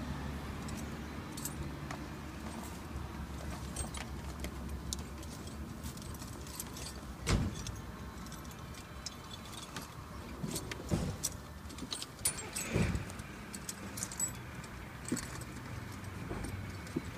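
Small metal tools and parts clinking and tapping as they are handled, with three louder knocks spread through; a car engine hums low at first, fading within the first couple of seconds.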